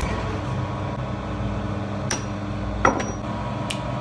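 A steady mechanical hum with several sharp clicks or knocks over it; the loudest comes about three seconds in and rings briefly.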